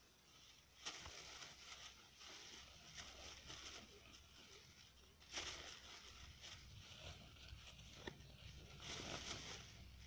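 Faint rustling of a thin plastic bag and loose marigold flowers as handfuls are dropped into the bag, swelling a few times.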